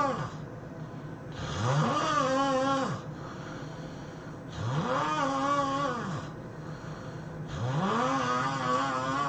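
A person snoring in a steady rhythm: three long snores about three seconds apart, each a droning tone that rises in pitch, holds, then drops away, with quieter breathing between them.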